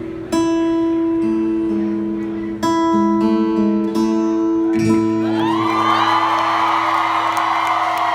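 Three strummed acoustic guitar chords, each left ringing, about two seconds apart: the closing chords of the song. From about five and a half seconds in, a concert crowd cheers and screams.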